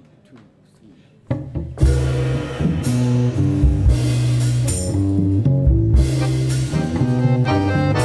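A jazz trio of accordion, double bass and drum kit starts playing about a second in, with held accordion chords over a walking bass and drums.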